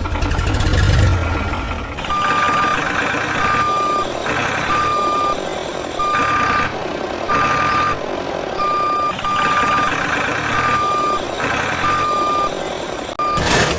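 A mini construction truck's engine rumbles low for the first two seconds, then its reversing alarm beeps steadily, about one beep every 1.2 seconds, alternating with bursts of engine noise. A sharp whoosh comes near the end.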